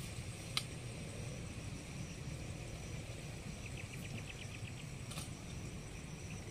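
Open-air ambience: a steady low rumble, a quick run of about eight high ticks about four seconds in, and two sharp clicks.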